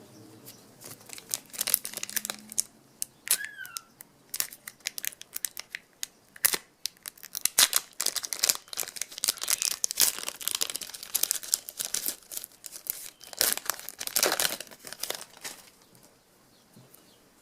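A trading-card pack wrapper crinkling and being torn open, in irregular crackling bursts that are thickest in the middle and again near the end.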